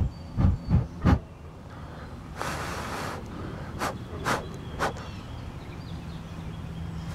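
A person blowing puffs of breath: one longer hissing blow about two and a half seconds in, then three short puffs. Before that, four low thumps in the first second or so, like the camera rig being bumped.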